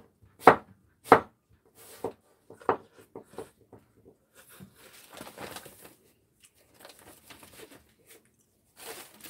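Kitchen knife cutting through food onto a wooden cutting board: a few sharp chops about a second apart, then fainter, irregular taps. Soft rustling around five seconds in, with another sharp chop at the end.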